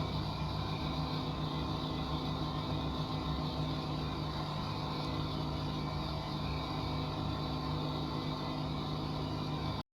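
A steady mechanical hum with a fixed pitch, which cuts off suddenly near the end.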